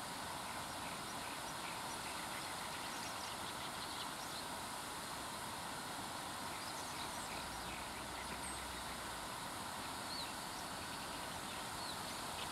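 Steady rush of river water pouring through a floodgate, with faint high chirps now and then.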